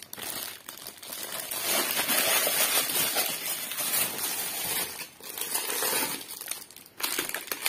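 Clear plastic wrapping around a bangle set crinkling as it is handled and pushed into its box, with two brief pauses near the end.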